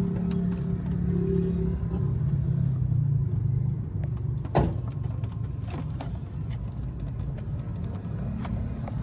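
Toyota 3Y four-cylinder petrol engine running with its newly fitted distributor, a steady hum that drops lower about two seconds in. A single sharp click comes about four and a half seconds in.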